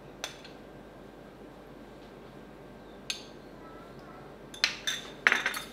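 Metal spoon clinking against a small ceramic sauce cup and plate: a light clink just after the start, another about three seconds in, and several sharper clinks near the end.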